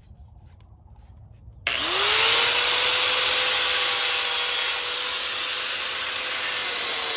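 Small electric angle grinder switching on about a second and a half in, its whine rising as the disc spins up, then running steadily as it grinds off rusted-in bolts on a metal piece.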